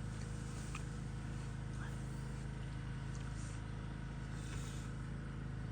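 A vehicle's engine running steadily, a low even hum with no change in pitch.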